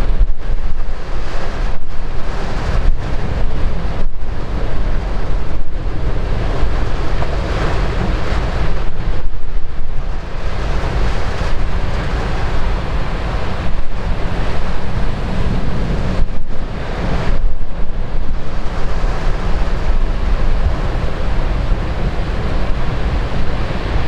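Heavy typhoon surf pounding the shore in a loud, continuous roar, with strong wind buffeting the microphone.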